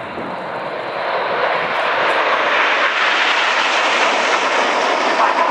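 Nine BAE Hawk T1 jets flying past together in close formation, their jet engine noise growing louder over the first two seconds and then holding steady.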